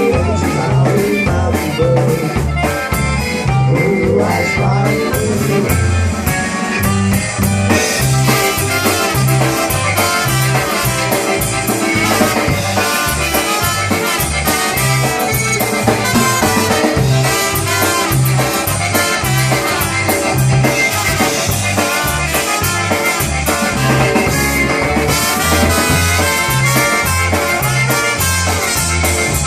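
Live polka band music with accordion, horns and drum kit over a steady bass beat. The sound grows fuller about a quarter of the way in.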